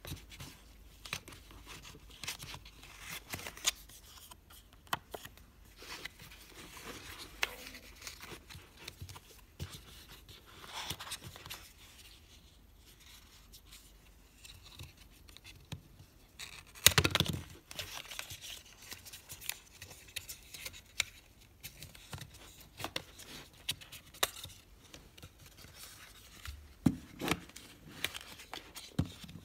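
Handling noises from unpacking a cardboard box: scattered small clicks, taps and rustling scrapes as the box insert is touched and a slim metal battery pack is lifted out, with one louder knock a little over halfway through.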